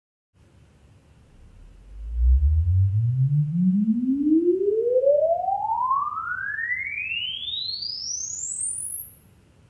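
Room EQ Wizard's measurement sweep: a single pure test tone gliding smoothly upward from deep bass about two seconds in to the very top of hearing just before the end, over faint background noise. It is the signal used to measure the right hi-fi speaker's frequency response for room correction.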